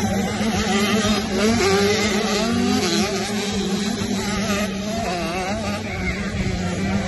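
Several motocross bike engines running on a race track at once, each revving up and down so their pitches rise and fall over one another.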